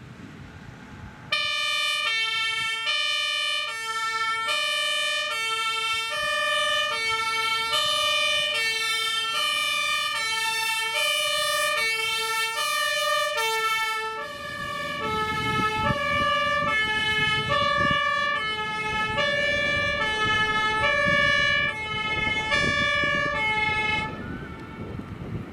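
A fire engine's German two-tone siren (Martinshorn), switching between a high and a low note about every half second, starts about a second in. About halfway through the pair of notes drops slightly in pitch as the vehicle's engine and road noise grow louder as it passes. The siren cuts off near the end.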